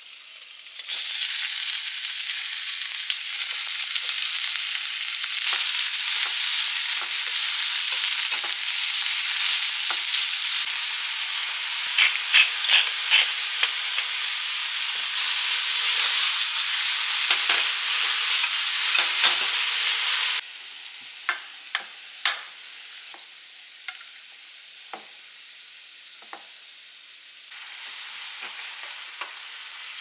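Sliced onion and meat sizzling in hot oil in a stainless-steel frying pan, stirred with wooden chopsticks that tap against the pan. About two-thirds of the way through, the sizzle drops suddenly to a quieter one, with a few more taps, while mushrooms cook on top.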